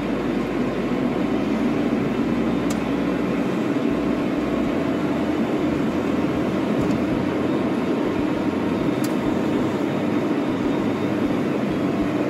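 Kei truck driving along, heard from inside the cab: a steady drone of engine and road noise.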